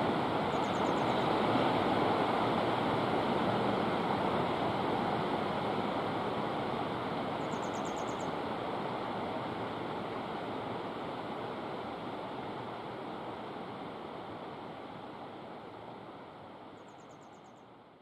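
Steady rushing of running water, like a stream, fading out slowly toward the end. Three times a small bird gives a faint, brief, high trill.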